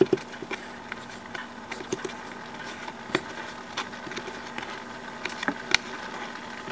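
A knife cutting microwaved turkey bacon on a plastic cutting board, with the pieces shifted by hand: scattered, irregular light clicks and taps over a faint steady hum.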